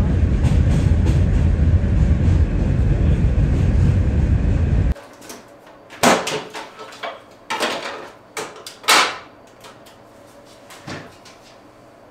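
Train running over a bridge: a loud, steady rumble that cuts off about five seconds in. Then a handful of separate knocks and clatters as things are set down and moved about on a counter.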